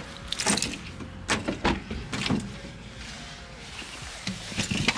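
Someone getting into a car: several knocks and clicks from the door and seat being handled, with rustling in between.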